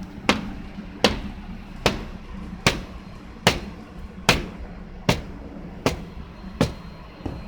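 Hammer blows struck at an even pace, nine in all, a little more than one a second, as workers repair a roof skylight. A steady low rumble sits underneath.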